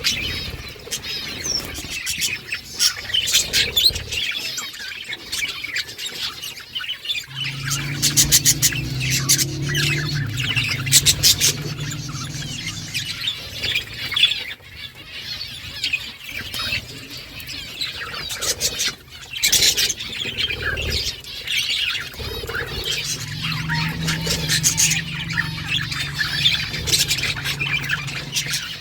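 A flock of budgerigars chirping and chattering continuously, many birds calling over one another. A low steady hum comes in twice beneath the birds, once for several seconds about a quarter of the way in and again later before stopping near the end.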